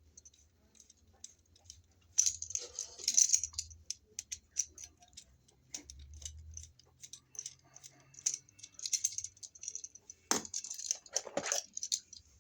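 Screwdriver turning down the terminal screws of a three-prong wall outlet: a run of small metallic ticks and rattles as the outlet and tool are handled, with a couple of louder knocks near the end.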